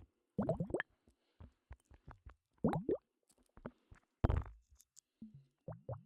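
Short wet plopping and squishing sounds in quick little clusters, made right at the ears of a KU100 binaural dummy-head microphone, with one louder thud a little past four seconds in.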